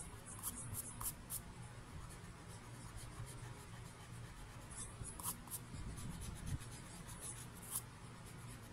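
Faint scratchy rubbing of a pencil-top eraser on paper in short strokes, lightening sketch lines. The strokes come in small bunches about a second in, around five seconds and near eight seconds, over a low steady hum.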